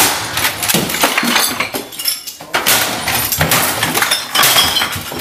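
A rapid clatter of sharp knocks and crashes, with a short lull about two seconds in.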